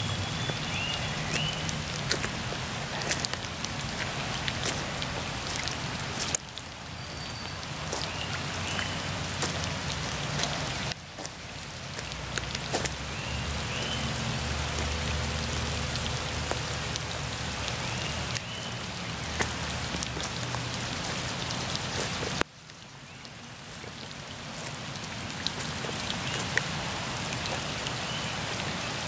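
Steady rain falling onto wet gravel and standing floodwater, with many small drop ticks through it. The sound drops away suddenly three times and builds back up each time.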